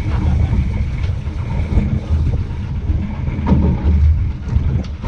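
Boat motoring on the sea, with a steady low rumble of engine and water and wind buffeting the microphone.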